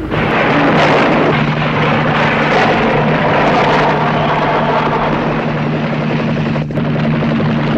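Helicopter running steadily overhead: a constant engine-and-rotor drone with a low hum, cutting in abruptly at the start.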